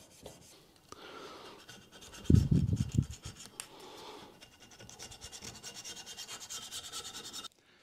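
Single-edge razor blade scraping hardened, varnished coolant and lubricant grime off the edge of a metal lathe part, in quick even strokes about four or five a second that stop abruptly near the end. A short, loud low-pitched knock of the part being handled comes about two seconds in.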